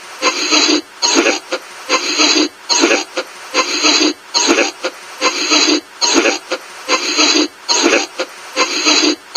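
Choppy bursts of radio static, about one and a half a second with short breaks between, from a spirit box sweeping rapidly through stations while waiting for an answer to a question.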